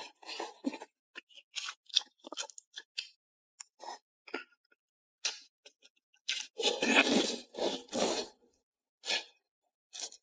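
Close-miked eating of broth-soaked fried stinky tofu: short wet clicks, crunches and squelches of chewing, then a longer, louder stretch of slurping and chewing about six to eight seconds in.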